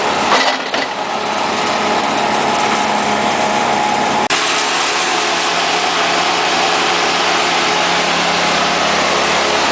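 Steady running of powered work machinery engines, with a sudden change in the sound about four seconds in.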